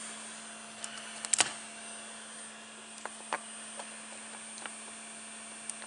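Steady hum from the idle Creality Ender 3 3D printer's fans, with a few light plastic clicks and taps as the freshly printed clamp is popped off the print bed and handled. The sharpest tap comes a little under a second and a half in.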